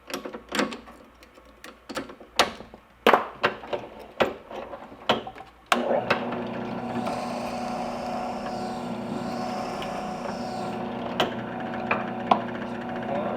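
Sharp knocks and clicks from a golf ball being reclamped at a drill press. About six seconds in the drill press motor switches on and runs with a steady hum. A higher, wavering cutting noise sits on top of it for about four seconds as the bit bores into the golf ball.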